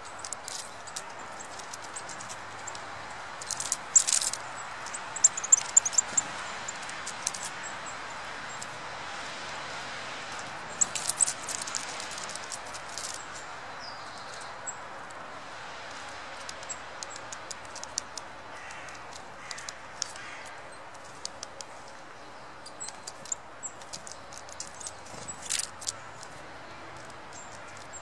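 Small forest birds giving short, high-pitched chirps and calls, with sharp clicks among them, over a steady background hiss.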